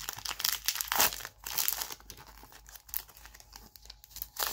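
Foil Pokémon booster pack wrapper crinkling as it is torn open by hand, with loud crackling in the first two seconds, then quieter rustles and a short crackle near the end as the cards are slid out.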